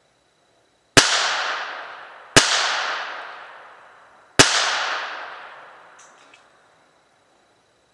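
Three shots from a Ruger Mark III .22 pistol, spaced unevenly about a second and a half and then two seconds apart. Each crack rings on in a long echo that dies away over about two seconds.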